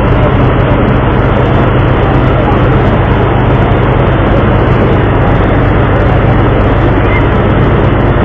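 The vessel's engine running steadily, a loud even drone with a constant low hum, heard from on deck.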